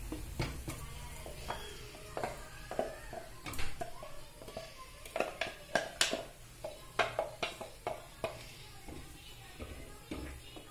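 A wooden spoon scraping and knocking ground masala paste out of a steel tumbler into a clay pot: a string of irregular taps and scrapes.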